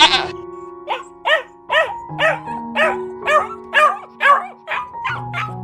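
Husky barking in an even series of short calls, about two a second, each rising and falling in pitch, quickening near the end, over background music with steady held notes. A bighorn sheep's bleat cuts off at the very start.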